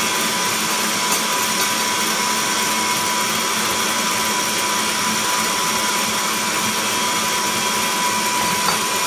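Electric stand mixer running steadily, its whisk beating a foamy mixture in a stainless steel bowl, with an even motor whine.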